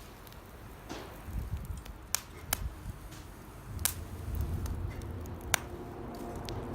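Campfire of damp firewood crackling, with about four sharp pops from the moisture in the wood over a low rumble. The wet wood is why it pops so much.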